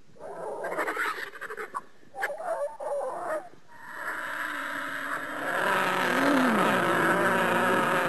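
Sound-effect call made for the extinct giant flightless bird Dromornis stirtoni: two short, harsh animal calls, then one long drawn-out call that gets louder about halfway through.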